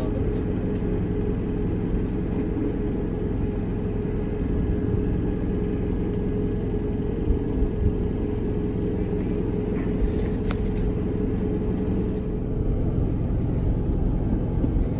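Steady low machine rumble with a constant hum, with a few faint clicks from a cordless impact wrench being handled; the impact wrench itself is not run.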